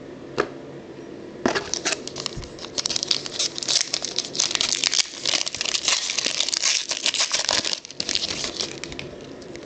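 Plastic trading-card packaging crinkling and rustling as it is handled, from about a second and a half in for some six seconds, with a single click just before.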